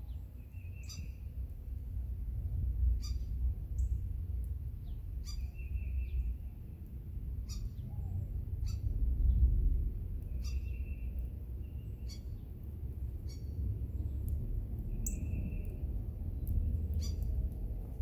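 Songbirds singing: one short phrase, a few quick high notes and a held whistled note, repeated about every two seconds. Under it runs a low rumble of wind on the microphone.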